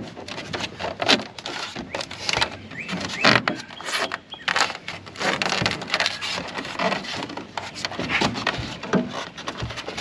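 Rigid 1-inch pink foam insulation board squeaking, crunching and scraping against the aluminum hull as it is pressed and worked down into the floor of a jon boat: a run of irregular short rubs and crunches.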